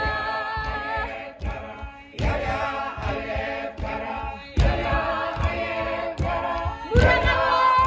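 An unaccompanied group of voices singing together, holding long sustained notes. Heavy thuds cut in about every two and a half seconds, the loudest near the end.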